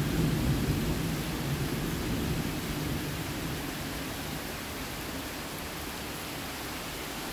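Heavy thunderstorm rain falling as a steady hiss, with a low rumble of thunder dying away over the first few seconds.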